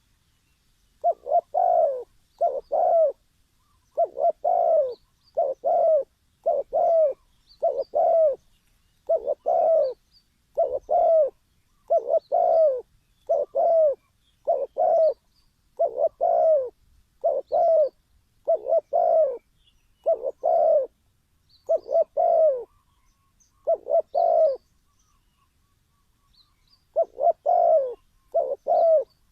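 Spotted dove cooing: a long series of short, low, slightly falling coos in quick succession, about one a second, with a brief pause near the end.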